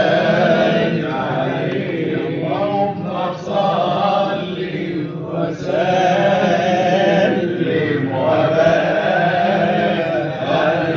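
Male voices chanting an Egyptian Islamic ibtihal (devotional supplication in praise of the Prophet). The chant moves in long, wavering melismatic phrases, with brief breaks about three and five seconds in.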